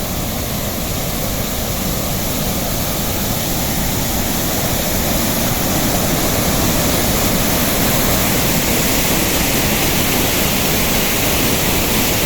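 Large waterfall rushing, a steady, loud roar of falling water that grows slightly louder about halfway through.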